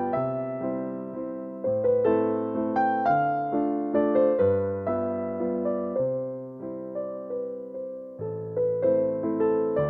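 Gentle background piano music: notes and chords struck and left to ring, with a slow-moving bass line.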